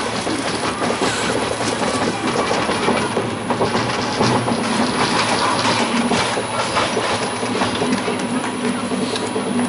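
Vekoma/Caripro monorail car rolling steadily along its raised track, wheels rattling and clicking continuously over a faint steady hum.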